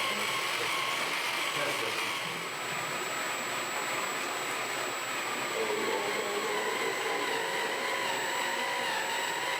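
1/14 scale RC model truck running, a steady whine that wavers slightly in pitch, over background chatter of voices.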